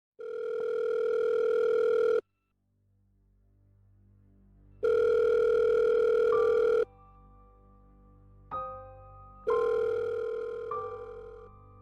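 Telephone ringback tone of an outgoing call waiting to be answered: three long steady beeps, each about two seconds, with pauses between them. Quiet background music with a low drone and a few struck notes fades in under the later beeps.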